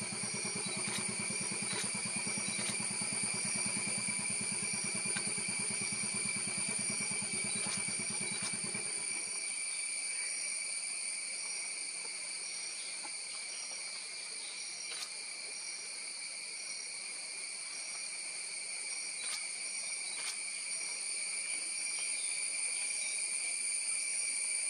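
Forest insects droning steadily in several high-pitched tones, one of them pulsing about every three quarters of a second. A low engine idles underneath and cuts out about nine seconds in.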